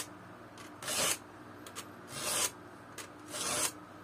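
Round chainsaw file rasping across the cutter teeth of a chainsaw chain clamped in a vise, sharpening them. Three separate strokes, about a second apart.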